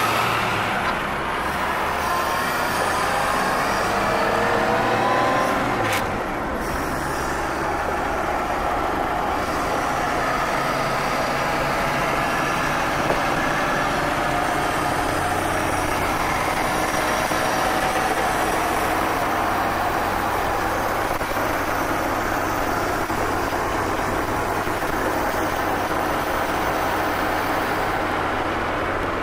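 1930 Graham-Paige's 207-cubic-inch straight-six engine and three-speed manual gearbox, heard from inside the cabin while driving. The engine rises in pitch as the car pulls away, breaks off at a gear change about six seconds in, then runs steadily at cruising speed with road noise.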